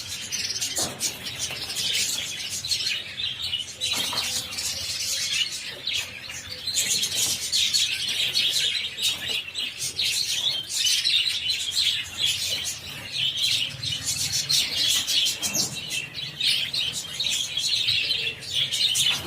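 A flock of budgerigars chattering, a dense, continuous mass of chirps and warbles.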